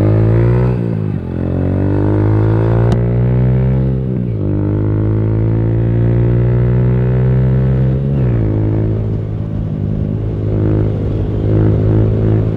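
Yamaha YBR125G's single-cylinder engine accelerating through the gears. The revs climb and drop sharply at upshifts about a second, four seconds and eight seconds in, then hold steady at cruising speed.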